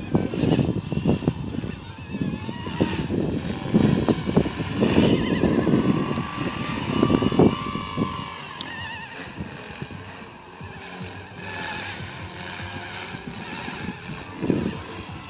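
Blade 230S electric RC helicopter flying hard, its motor and rotor whine rising and falling in pitch with the manoeuvres. Strong wind gusts buffet the microphone, making repeated low rumbles over the whine.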